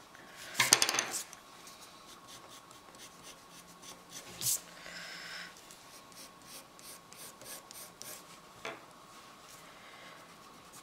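Graphite pencil and hands rubbing and sketching on drawing paper. There is a short, louder rub about a second in, and a couple of light taps of things set down on the wooden table.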